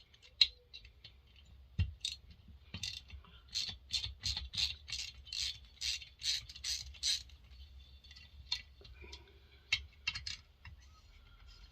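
Ratchet wrench clicking as a bolt is backed out of a McCulloch 7-10 chainsaw during teardown, a steady run of about two or three clicks a second for several seconds, with a few scattered clicks of tools and parts around it.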